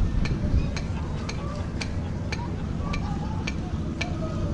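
Harbour-side ambience: a steady low rumble with sharp light clicks about twice a second, and faint distant voices.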